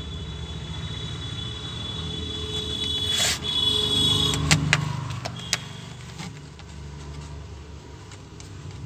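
Hands handling a small power-supply circuit board and fitting a wire-harness connector to a main board: a handful of sharp plastic clicks and knocks around the middle, over a steady low hum.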